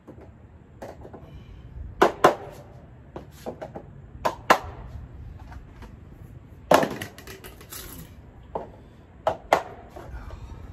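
A mallet knocking plastic shelving parts together during assembly: a series of sharp knocks, several in quick pairs, every couple of seconds.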